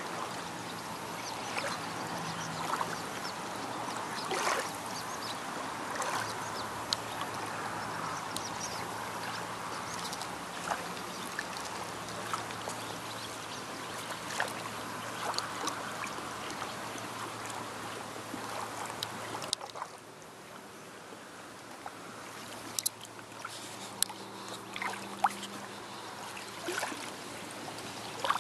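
Small waves lapping and trickling at the edge of a sandy beach, a steady wash full of little clicks and splashes. About two-thirds of the way through it turns quieter, and sharper small splashes follow, hands stirring shallow water. A faint low steady hum lies underneath.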